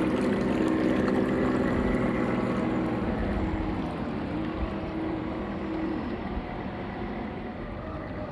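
Battery-powered radio-controlled model tugboat running on the water: a steady motor hum over the wash of water, slowly fading away.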